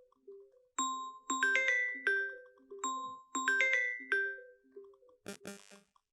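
Mobile phone ringtone: a short, bright, bell-like melody of plinked notes that plays twice, about two and a half seconds apart, followed by a couple of brief clicks near the end.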